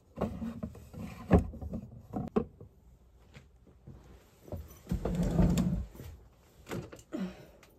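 Handling noise as things are moved around: a few sharp knocks and clicks, then a longer sliding, rubbing sound about five seconds in.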